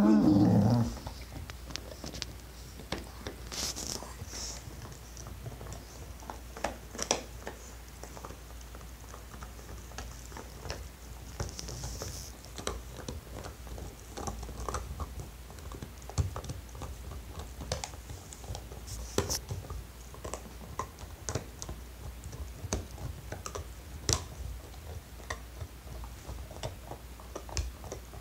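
Two puppies gnawing a yellow chew bone: irregular clicks and scrapes of teeth on the bone throughout. A dog barks once, loudly, right at the start.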